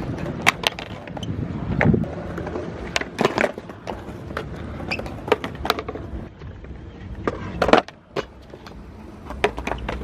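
Skateboard wheels rolling on pavement, with a string of sharp clacks as the board pops and hits the ground.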